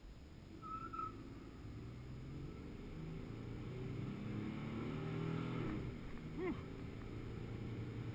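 1997 Ford F-150's 4.2-litre V6 engine accelerating hard from inside the cab, on a 0-60 run. The engine note climbs and grows louder, drops briefly about six seconds in as at an upshift, then pulls on.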